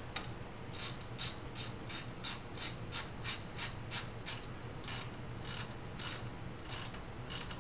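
Hand ratchet with a deep-well socket running in the water pump bolts on a Jeep 4.0-litre inline-six, clicking in a steady rhythm of about three strokes a second.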